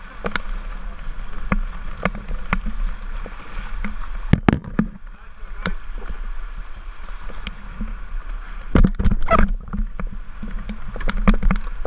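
White water rushing and splashing around a plastic whitewater kayak as it runs a river rapid, with frequent sharp knocks and splashes from paddle strokes and waves hitting the boat.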